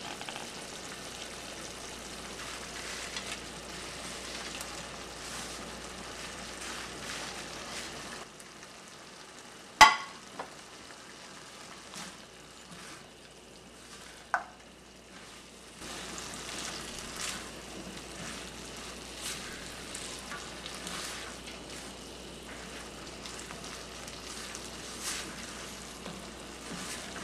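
Curry gravy sizzling and bubbling in a nonstick frying pan while a silicone spatula stirs and scrapes eggplant pieces through the sauce. The sizzle drops quieter about eight seconds in and picks up again around sixteen seconds; a sharp knock about ten seconds in, and a smaller one a few seconds later, are the loudest sounds.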